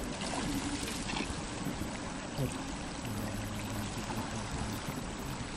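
Shallow creek running over gravel and stones: a steady rush of flowing water.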